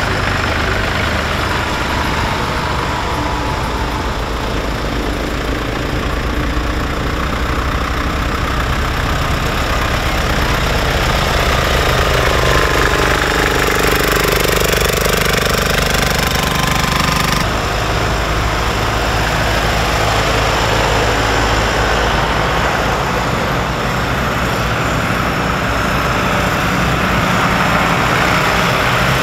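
Tractor diesel engines running as a procession of tractors drives slowly past, one passing close about halfway through.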